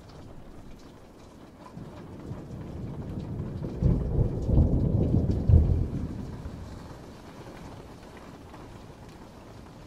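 Steady rain with a roll of thunder that builds about two seconds in, surges loudest a few times around the middle, and rumbles away by about seven seconds in.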